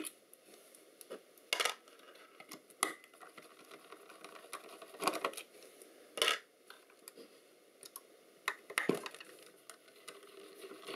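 Screwdriver working on tight screws in the actuator's metal front plate, with parts being handled: a handful of scattered clicks and metal clinks between quiet stretches.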